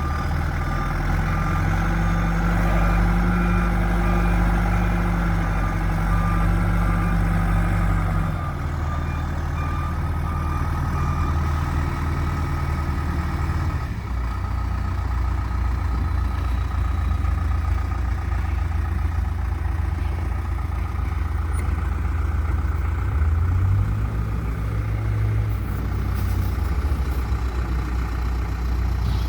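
2005 John Deere 310SG backhoe loader's diesel engine running under operation, with its reverse alarm beeping in a steady pattern for roughly the first third. After the beeping stops the engine carries on alone, its pitch dropping, then rising briefly as it revs up near the end.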